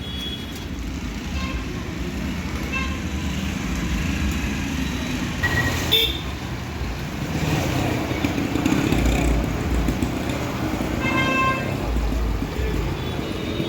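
Street traffic with a steady engine rumble and a few short horn toots, one of them about ten seconds in, plus a sharp click about six seconds in.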